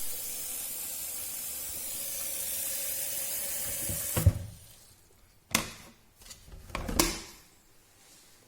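Water running steadily from a tap, filling an electric kettle, stopping with a knock about four seconds in; then a few sharp clicks and knocks.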